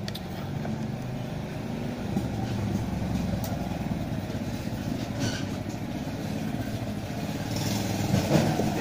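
A motor vehicle's engine running steadily nearby, a low hum with a fluttering edge, picking up slightly near the end.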